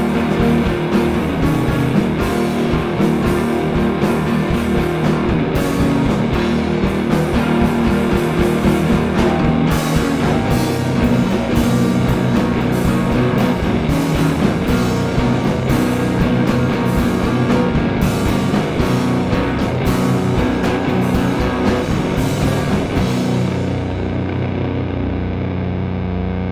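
Rock band playing instrumentally: electric guitars and bass over a drum kit. About 23 seconds in, the drums stop and the guitars and bass ring out on a held chord.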